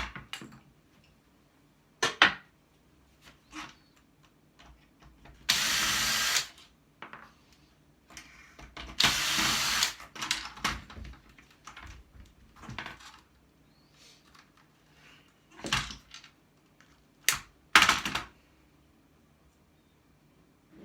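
Hand-held power tool run in two short bursts of about a second each, among scattered metal knocks and clicks of parts being worked loose and handled.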